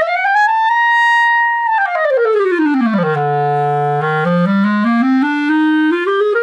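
A freshly repaired and adjusted clarinet plays a quick run up to a held high note, then runs down to a held note at the bottom of its range and climbs back up note by note. The pads are sealing well and the registers connect easily.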